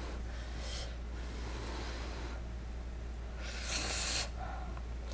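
A person eating a mouthful of creamy pasta: quiet chewing and breathing, with one loud, sharp breath lasting under a second about three and a half seconds in. A steady low hum runs underneath.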